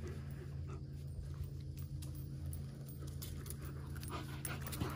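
American Eskimo Dog panting.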